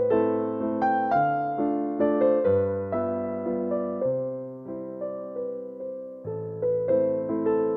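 Background piano music: a melody over chords of struck notes, each fading after it sounds.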